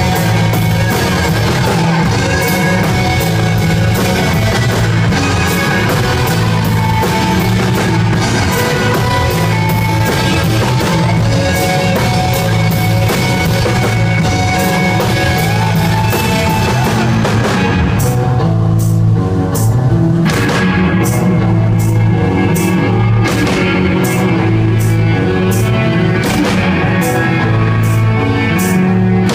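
Live rock band playing loud, with electric guitar and drum kit. The cymbals drop out briefly about two-thirds of the way through, then the full band comes back in.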